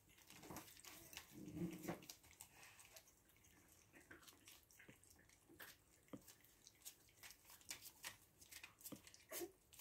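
Puppies lapping and smacking at soft food on a plate, a faint run of small wet clicks, with a short low sound about one and a half seconds in.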